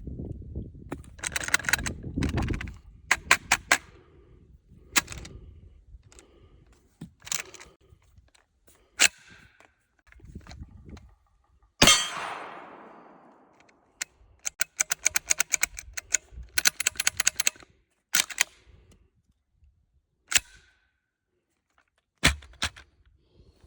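Revolution Arms LZ12 Mauler 12-gauge pump-action shotgun being worked: many sharp metallic clicks and clacks, some in quick runs, from a gun that fails to fire reliably. One much louder bang with a long fading tail comes about twelve seconds in.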